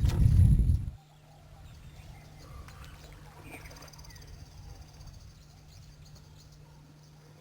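A loud low rumble for the first second, then quiet outdoor ambience in which an animal gives a high, even trill lasting about two and a half seconds, with a few faint short calls around it.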